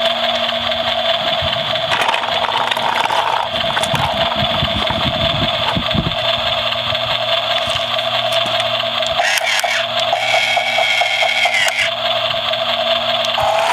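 Electronic engine sound effect from a battery-powered lights-and-sounds toy truck's small speaker, running steadily, with a different electronic sound from about nine seconds in that lasts a few seconds. A few knocks and scrapes of plastic on gravel come as the toy garbage truck is set onto the trailer.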